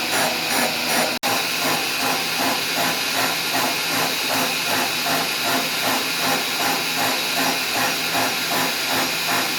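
Machine tool cutting metal, taking the V-way off a mini lathe bed to plane it flat: a motor hum under a steady cutting hiss that pulses about three times a second. It drops out for an instant about a second in.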